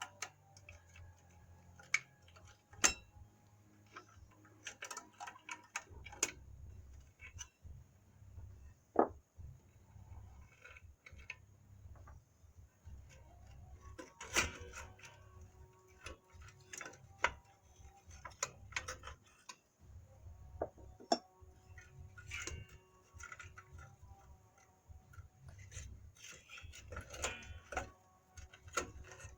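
Metal tools and steel drum-brake parts clinking and clanking as they are handled, an irregular run of sharp clicks and knocks, some ringing briefly.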